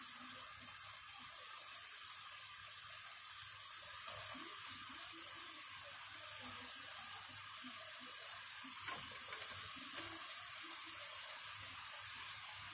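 Low, steady sizzle of julienned carrots and onions simmering in butter and a little water in a frying pan, with a few faint soft knocks as shredded napa cabbage goes in.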